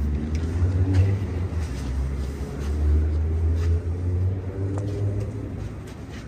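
Low, uneven rumble of a motor vehicle's engine passing on the street, loudest about a second and three seconds in.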